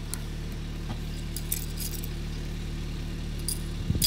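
Car engine idling steadily while a tyre rolls over a plastic spring toy, with a few sharp plastic cracks and a louder burst of cracking near the end as the toy shatters.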